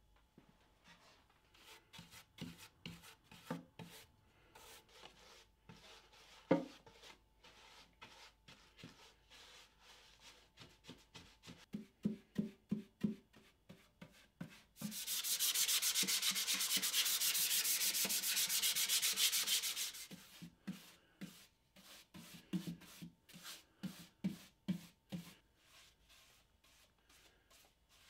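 Paintbrush strokes on plywood: a run of short, soft rubbing swishes as paint and finish are brushed on. About halfway through, a steady loud hiss lasts around five seconds and stops suddenly, then the brushing strokes go on.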